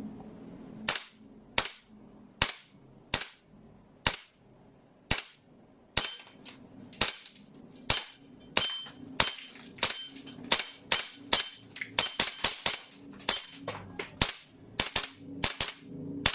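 G&G Armament MGCR 556 gas blowback airsoft rifle firing single shots, each a sharp crack of gas discharge and bolt cycling. There are about thirty shots, roughly a second apart at first and quickening to several a second in the last few seconds.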